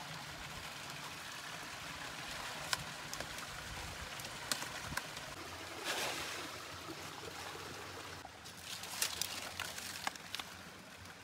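Small forest stream trickling and gurgling steadily, with scattered clicks and rustles, and a brief louder rustle about six seconds in.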